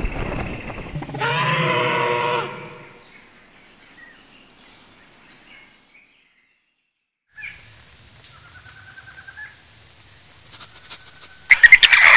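Played-back dinosaur sound effects from an augmented-reality show: a drawn-out creature call with a wavering pitch over the first two seconds or so, then a gap of silence, then a sudden loud screech near the end.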